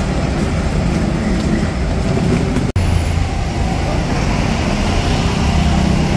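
Busy city street ambience: a steady wash of traffic noise that cuts out for an instant about halfway through.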